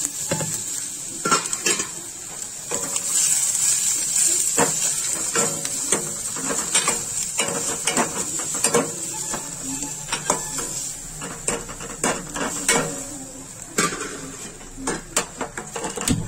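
Chopped onions and green chillies sizzling in hot oil in a stainless steel kadai while a metal spoon stirs them, clinking and scraping against the pan again and again. The sizzle is strongest in the first few seconds, just after the onions go in.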